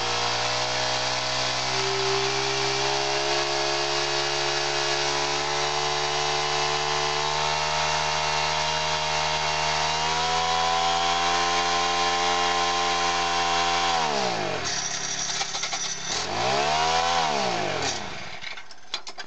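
Honda FG100 tiller's GX31 four-stroke engine running steadily, its speed creeping up and then stepping up. About 14 seconds in it bogs down, surges once more and dies. The owner suspects it is starved of fuel at full throttle.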